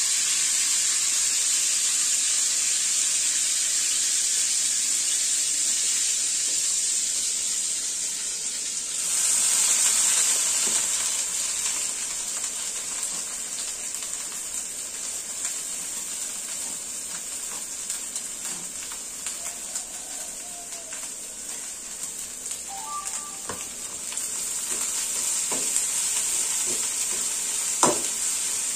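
Hot oil sizzling steadily as food deep-fries in a wok, with a few clicks of a metal slotted spoon against the wok and a sharp knock near the end. The sizzle swells about nine seconds in and again late on.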